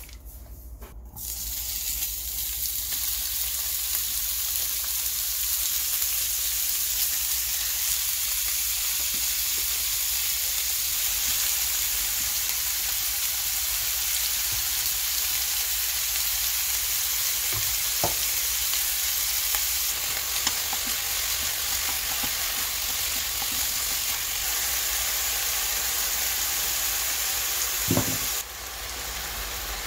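Pork chunks and large green onions sizzling in hot oil in a nonstick pan, a steady frying hiss that starts about a second in, with a couple of light knocks from stirring. The sizzle drops quieter near the end.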